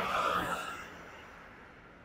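Road traffic noise, a vehicle going by, fading away over the first second and leaving only a faint hiss.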